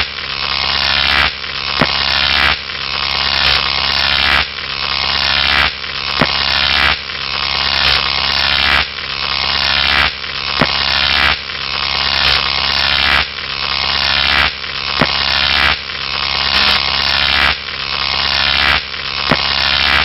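Electric arc sound effect: a loud, harsh buzzing crackle over a low steady hum. It loops about every second and a quarter, each pass swelling and then breaking off.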